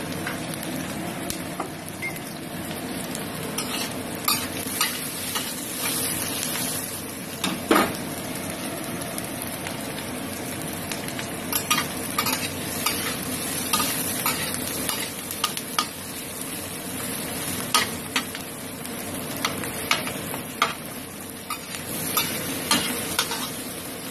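Sliced onions sizzling in a little oil in a stainless steel wok, stirred with a metal spatula that scrapes and clinks against the pan in frequent sharp knocks.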